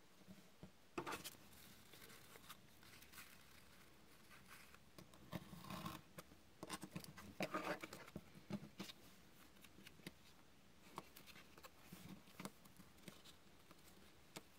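Faint handling sounds of ribbed paper pieces on a cutting mat: light rustles and taps. A run of short scraping strokes a little past halfway comes from a craft knife trimming the paper edges along a metal ruler.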